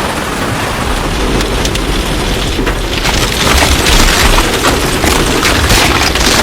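Heavy rain with a deep rumble of thunder; the rain grows louder and the patter of drops sharper about three seconds in.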